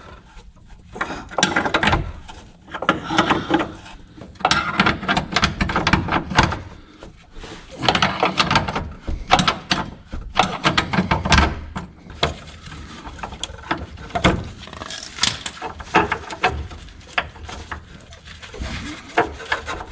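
Irregular knocks, clanks and squeaks of hand tools and suspension parts being worked on while a car is being repaired.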